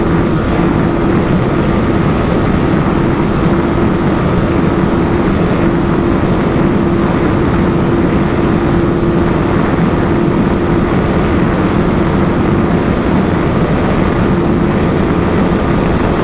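Yamaha R15 V3's single-cylinder engine held flat out in sixth gear near its top speed, a steady unchanging drone under heavy rush of air on the microphone.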